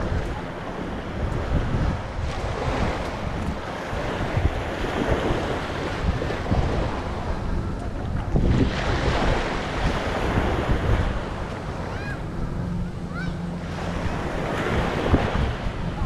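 Small waves breaking and washing up onto a sandy shore, swelling and ebbing every few seconds, with wind buffeting the microphone.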